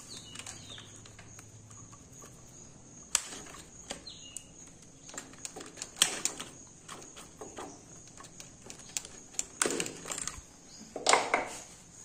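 Irregular clicks and knocks of hands and tools working on a Bajaj Pulsar 150 BS6's fuel-injection throttle body as it is taken off, with the loudest knocks about six seconds in and near the end.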